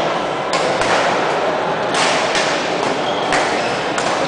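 Badminton rackets hitting a shuttlecock in a rally: several sharp hits about a second apart, over the steady din of a busy sports hall.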